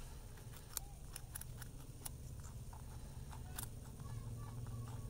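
Rabbits biting and chewing raw carrot and fresh greens up close: irregular small crisp crunching clicks over a low steady hum.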